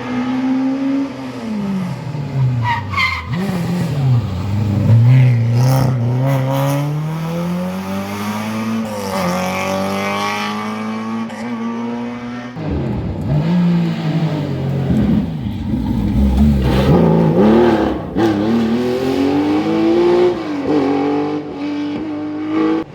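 Historic rally car engines driven hard on a stage. The engine note drops steeply as a car slows for a corner, then climbs as it accelerates away, and this happens again in the second half. There is some tyre squeal.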